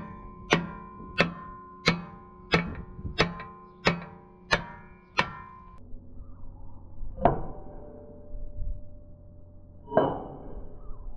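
Hammer blows on a steel truck chassis frame, each strike ringing on. Nine evenly paced blows come first, then two single blows after a pause.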